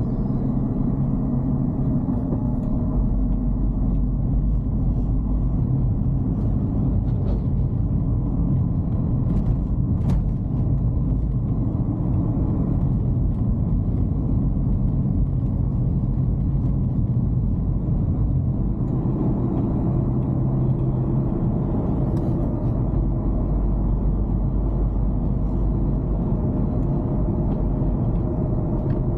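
Dacia Duster heard from inside the cabin while driving: a steady low rumble of engine and tyres with a faint engine hum. A single sharp click about ten seconds in.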